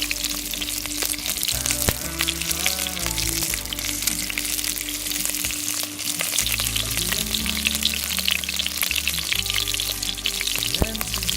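Meat searing skin-side down in a pan over the hottest part of a charcoal fire, sizzling and crackling steadily, with background music underneath.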